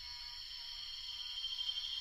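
Tropical rainforest insect chorus, cicadas among them: a steady, high-pitched drone of several overlapping tones, growing slowly louder.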